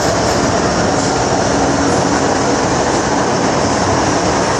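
MTR Island Line metro train running between stations, a steady, even noise of wheels on track and running gear with a faint low hum.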